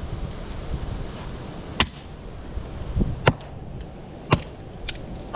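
Firewood being broken up: four or five sharp wooden cracks, roughly a second apart, over a steady low rumble.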